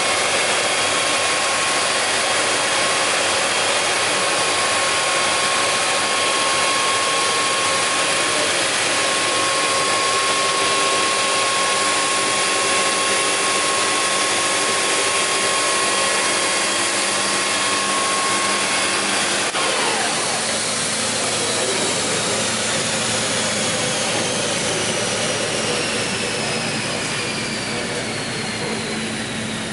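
WEINIG Profimat 26 Super four-sided planer running with a steady whine. About two-thirds of the way through it is switched off and its cutter spindles coast down, the whine falling slowly in pitch.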